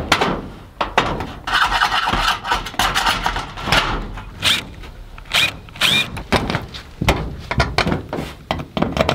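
Scattered knocks, clicks and rubbing of hands and tools on corrugated metal roofing and a metal ridge cap, with a denser scraping stretch about a second and a half in.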